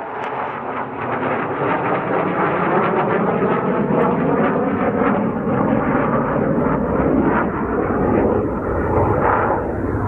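A fighter jet flying over, its jet engine noise loud. The noise builds over the first two seconds, then holds steady.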